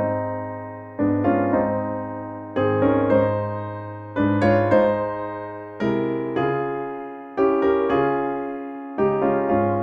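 Piano playing a slow hymn tune in chords, a new chord struck about every one and a half seconds and left to ring and fade.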